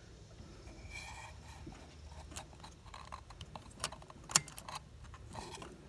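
Small metallic clicks and light taps as a greased valve keeper is fitted by hand into the compressed valve spring retainer of an Onan B48G flathead engine. The sharpest click comes a little after four seconds in.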